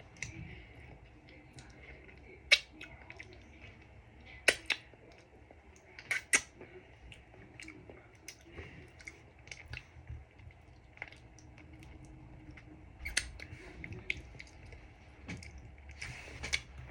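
Quiet eating sounds: scattered small clicks and taps from chewing and handling food, with a few sharper ticks.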